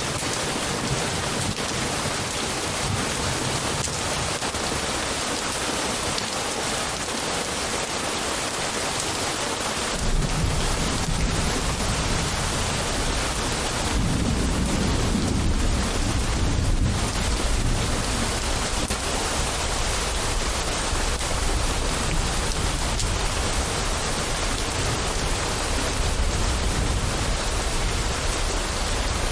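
Steady rain falling with thunder: a deep rolling rumble comes in about a third of the way through, swells in the middle and keeps grumbling under the rain.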